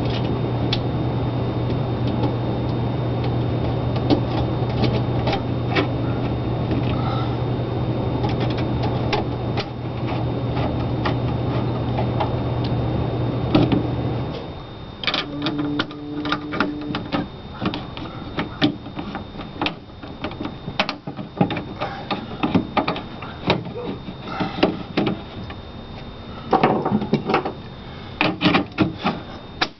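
A steady low hum that cuts off abruptly about halfway through, then scattered clicks and knocks of hands and a screwdriver handling a plastic meter-socket generator adapter and its fittings.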